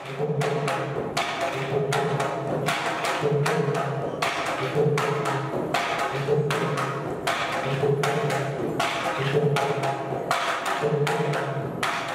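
Tharu stick dance music: wooden sticks clacking together in a steady rhythm, about three strikes a second, over a hand-played barrel drum.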